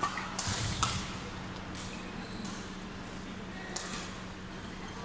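Badminton rackets striking a shuttlecock in a doubles rally: a few sharp, separate hits roughly a second or more apart, over a steady low hum of the hall.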